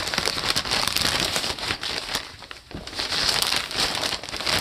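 Clear plastic zip-top bag crinkling in bursts as fabric scraps are stuffed into it, with a brief lull a little past halfway.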